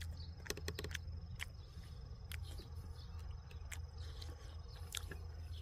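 A cricket trilling steadily at one high pitch, with scattered short clicks over a low rumble.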